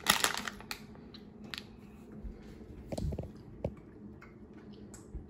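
A plastic candy bag crinkles briefly at the start. Then come quiet sounds of children chewing gummy cola candies, with a few soft clicks and knocks.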